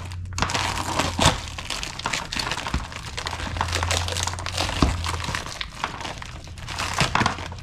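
Plastic parts bags crinkling and rustling as small kit parts are handled, with scattered sharp clicks of parts knocking together, over a steady low hum.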